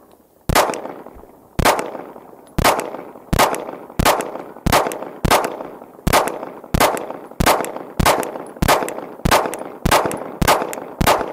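A ZRO Delta FKS-9 9mm pistol fired in a steady string of about sixteen shots, roughly one every two-thirds of a second, each shot trailing off in echo.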